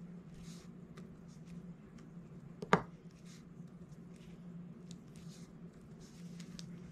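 Faint, scattered taps and clicks of a diamond-painting drill pen picking up resin drills and pressing them onto the canvas, with one sharp click a little under three seconds in, over a low steady hum.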